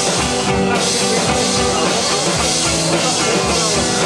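Live rock band playing, with a drum kit keeping a steady beat under held notes.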